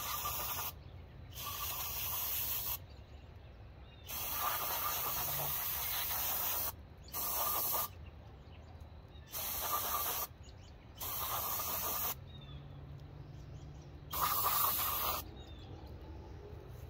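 Aerosol brake cleaner sprayed in about seven short hissing bursts, each one to two and a half seconds long.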